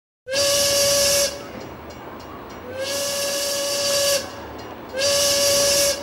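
Train whistle sounding three blasts, the middle one the longest. Each is one steady pitch that slides up slightly as it starts, with a loud hiss along with the tone.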